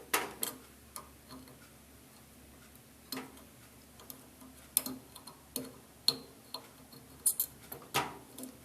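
Irregular sharp clicks and light taps as wire connectors are pushed onto a microwave oven's magnetron terminals and snapped into place.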